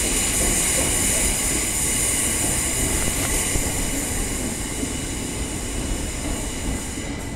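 Electric multiple-unit train at a station platform: a steady high whine with hiss over a low rumble, slowly fading, with the high tones dropping away near the end.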